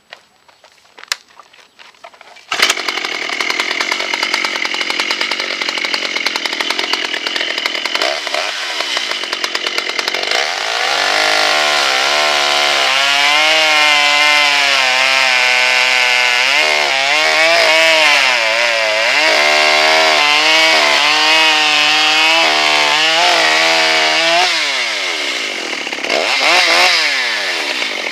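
Makita DCS6421 two-stroke chainsaw fitted with an 85 cc big-bore cylinder kit, starting up suddenly a couple of seconds in after a few handling clicks, then running hard. From about ten seconds in it is held at high revs cutting wood, its pitch wavering and sagging under load, then it drops, revs up once more and falls back near the end.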